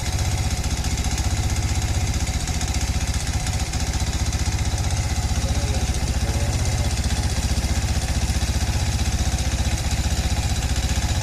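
Engine idling steadily with a fast, even pulsing beat, carrying the metallic knock whose cause the owner is trying to find.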